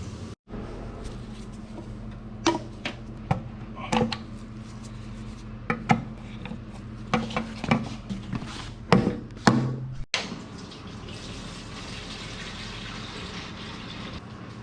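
Irregular sharp knocks and clacks from hardwood floor installation, over a steady low hum. They are spaced unevenly, bunching between about two and ten seconds in, and give way to a steady hiss after a cut.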